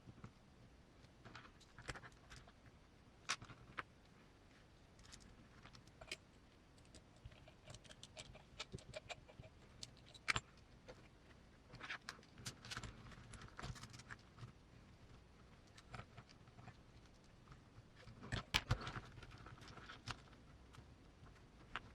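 Scattered light clicks and clinks of small metal parts and tools being handled while assembling an RC crawler's axle and driveshaft parts, with a louder quick run of clicks near the end.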